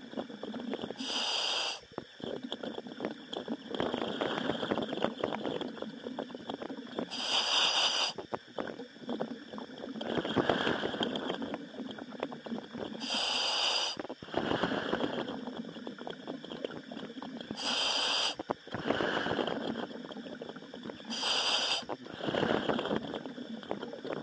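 A commercial diver breathing in a helmet, heard over the diving radio: a short hiss of inhaled air every four to six seconds, and between breaths a rough bubbling and gurgling.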